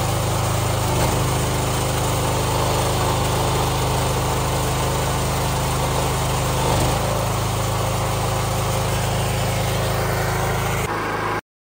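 Small gasoline engine of a hydraulic log splitter running steadily, its note shifting slightly about a second in and again near seven seconds; the sound cuts off abruptly near the end.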